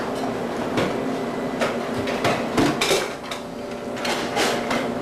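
Kitchen utensils and pots clattering and knocking: about ten sharp knocks at irregular intervals, over a steady faint hum.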